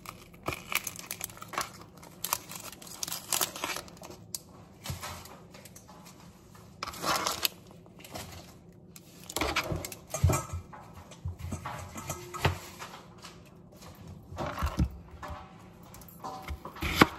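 An onion being peeled and cut with a knife on a cutting board: papery skin crinkling and tearing, with irregular knife taps and chops.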